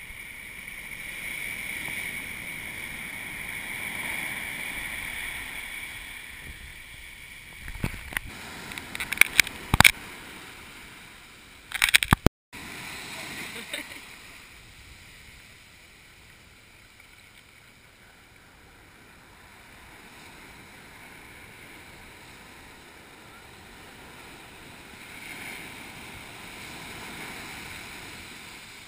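Surf washing up over the sand, swelling and fading in a steady wash. About 8 to 13 seconds in come a cluster of sharp knocks and clicks from the camera being handled, then a brief cut-out.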